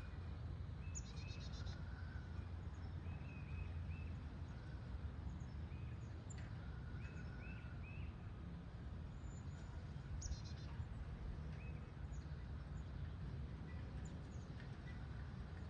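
Quiet outdoor background with a steady low rumble, over which wild birds give scattered short chirps; twice, about a second in and again about ten seconds in, comes a brief rapid high trill.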